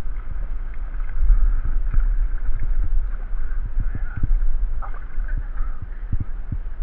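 Low rumble with many irregular dull thumps, typical of wind buffeting the microphone.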